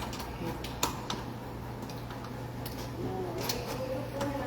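A few sharp small clicks and taps, typical of lock parts and tools being handled during rekeying, over a steady low hum.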